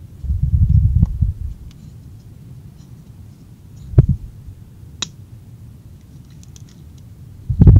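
Handling noise from a plastic RC rear axle housing and its parts being fitted together by hand: a stretch of low bumping and rubbing in the first second or so, a sharp click at about four seconds and another a second later, and a heavier knock near the end.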